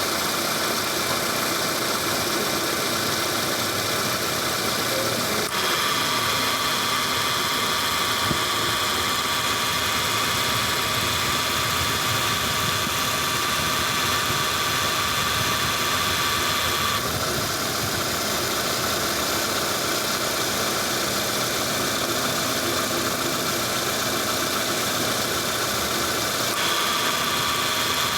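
Car engine idling with a damaged air-conditioning compressor running, making a rough growling noise that is the sign of a failing compressor. A brighter, hissing edge comes in abruptly about five seconds in, drops out around seventeen seconds and returns near the end.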